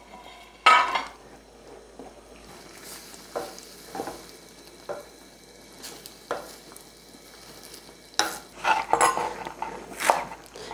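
Spoons and dishes knocking and clinking against a Korean stone pot (ttukbaegi) as ingredients are added: one sharp knock near the start, a few light taps, then a busier clatter near the end, over a faint hiss.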